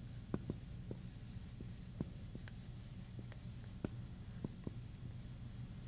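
Faint, irregular light ticks and taps, about a dozen of them, scattered over a low steady room hum.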